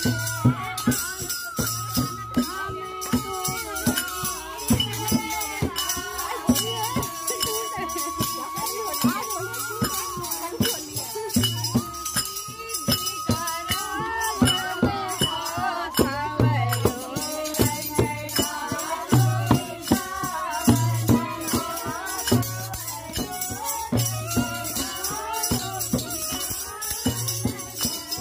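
Music: a Holi folk song with a steady drum beat and jingling, tambourine-like percussion under a sung melody.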